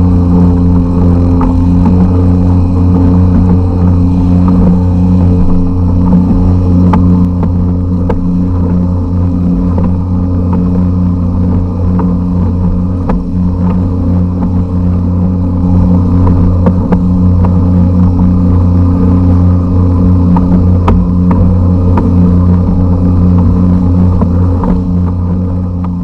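Generic 52cc air-cooled two-stroke outboard motor, a string-trimmer-type engine, running at a steady speed and pushing a kayak along, its note holding constant.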